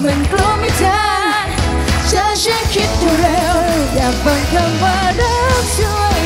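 Two women singing an upbeat pop song into handheld microphones over loud backing music with a heavy, steady bass beat.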